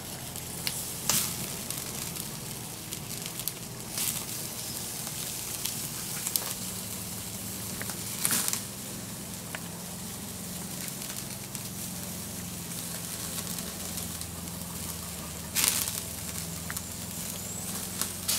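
Wood fire burning in a grill box, crackling steadily with a few sharp pops of spitting wood, and sausages sizzling on the grate above it.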